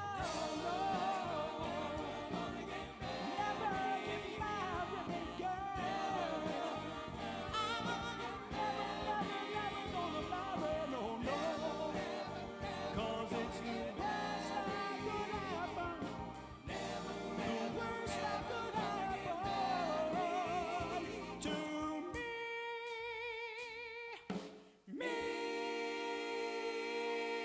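Oldies show band performing: singing in vocal harmony over drums and backing instruments. About 22 seconds in, the singing turns to long held notes with vibrato, broken by a short dip near the end.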